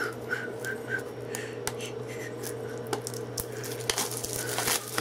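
A shrink-wrapped plastic Blu-ray case being handled and unwrapped, with scattered clicks and crinkles of plastic over a steady low hum.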